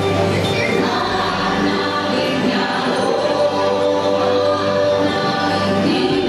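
Choral music from the ride's soundtrack: a choir singing long held notes over a steady low drone.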